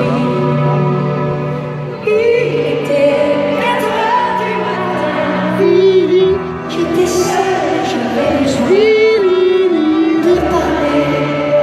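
A female singer performing a slow ballad live with piano and band accompaniment, holding long notes, heard from far back in a stadium.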